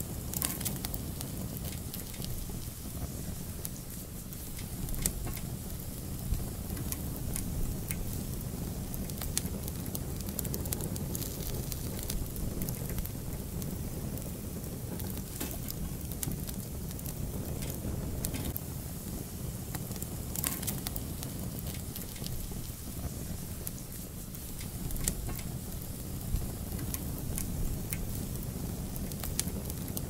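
Wood fire burning: a steady low rush with irregular crackles and occasional sharper pops.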